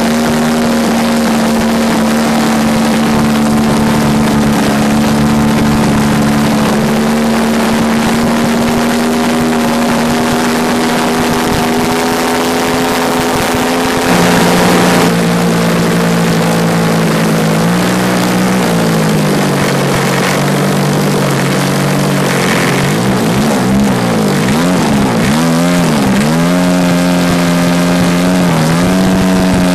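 Hangar 9 Edge 540 RC plane's engine and propeller running, heard from on board the plane. The pitch holds steady, drops about halfway through, then dips and rises several times near the end.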